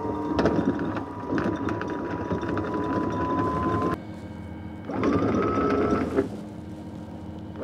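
Electric anchor windlass letting out chain: the motor whines up to speed and runs steadily with the chain rattling through, stops about four seconds in, then spins up again for about a second.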